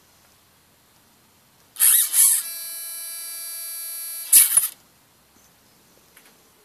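Bluebird BLS-31A high-voltage servo under load: a short burst of motor and gear noise as it drives its arm against a spring scale, then a steady high-pitched whine for about two seconds while it stalls holding about 9 kg, then another short burst as it moves again.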